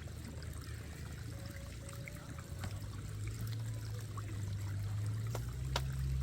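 Running water trickling and flowing steadily, with two light clicks near the end.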